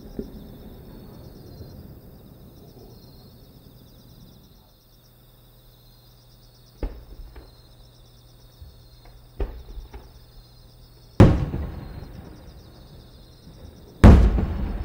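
Aerial fireworks shells going off: two lighter thumps about seven and nine seconds in, then two loud booms about three seconds apart near the end, each trailing off in a long echo.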